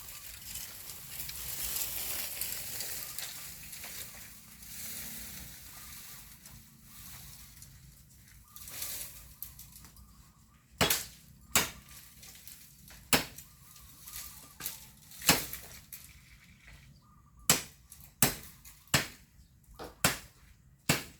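Bamboo leaves and stems rustling and crackling for the first few seconds. From about halfway on, a hand blade chops into bamboo with about ten sharp strikes, roughly a second apart.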